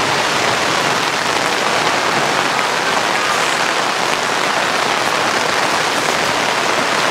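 Heavy rain falling steadily on a pop-up canopy and the wet grass around it.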